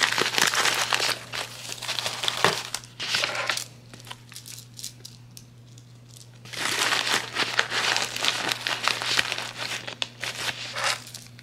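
Small clear plastic bags crinkling as they are handled and slipped into a padded bubble mailer. The crinkling comes in two bouts with a quieter pause in the middle.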